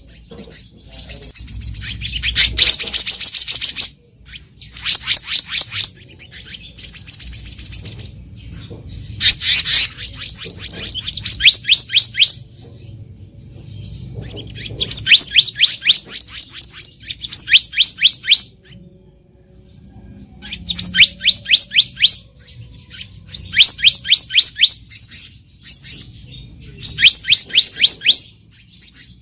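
Black-naped monarch (kehicap ranting) singing: about nine phrases of rapid, evenly repeated high, sharp notes, each phrase lasting one to three seconds with short pauses between.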